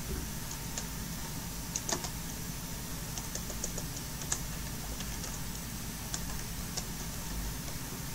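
Typing on a computer keyboard: scattered, uneven keystroke clicks over a steady low hum.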